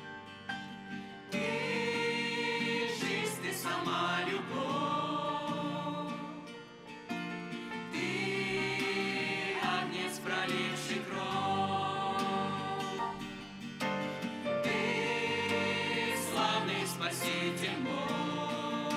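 Church choir singing a hymn over instrumental accompaniment, in phrases of long held notes with vibrato.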